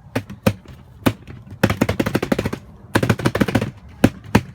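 Foam surfboard being struck to imitate gunfire: a few single sharp hits, then two rapid runs of hits at about a dozen a second like machine-gun fire, then a couple more single hits.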